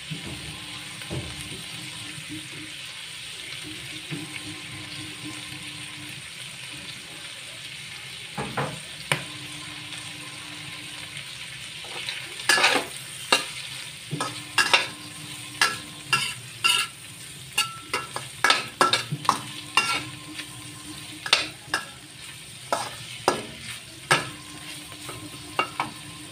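Strips of pork fat with chopped onion and garlic sizzling steadily in a stainless steel wok. A spatula scrapes and knocks against the pan, a few strokes about a third of the way in, then many in quick succession through the middle and later part.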